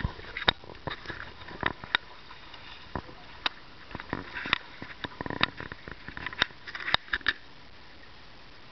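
Irregular sharp knocks and clicks aboard a wa'apa outrigger sailing canoe under way in choppy water, with a low background wash.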